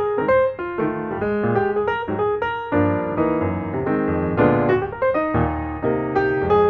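Background music: a piano playing a quick run of melody notes over lower chords.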